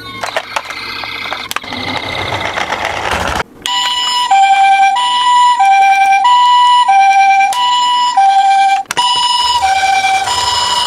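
Toy ambulance's electronic two-tone siren, the Japanese-style 'pee-po', alternating between a higher and a lower tone about every two-thirds of a second. It starts sharply about three and a half seconds in and breaks off briefly near the end. Before it come clicks and a rising rush of noise.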